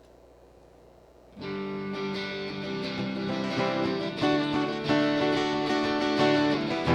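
Near silence, then about a second and a half in, guitar music starts suddenly with strummed chords, the instrumental introduction to the next worship song.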